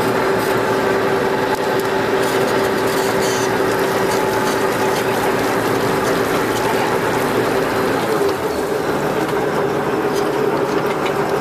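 Fishing boat's engine and net-hauling winch running steadily with a constant hum while the bag of catch is lowered onto the deck; the hum wavers briefly about eight seconds in.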